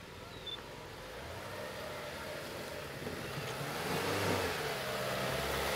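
Renault Duster 4x4 driving over rutted dirt toward the listener, its engine growing steadily louder as it approaches. Around the middle the engine note rises and falls as the driver works the throttle through the ruts.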